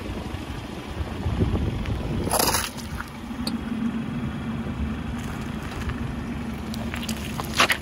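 Car tyre rolling slowly on asphalt with a low, steady engine hum. A short crackling hiss comes about two and a half seconds in, and a sharp short sound near the end.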